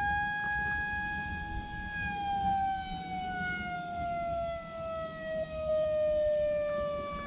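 A recorded civil-defense-style siren played from a sound board through a small speaker. Already wound up, it holds one steady pitch for about two seconds, then slowly winds down in pitch.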